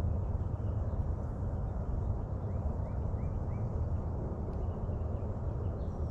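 Steady low outdoor rumble with no clear pitch. About two and a half seconds in, a bird gives four short rising chirps in quick succession.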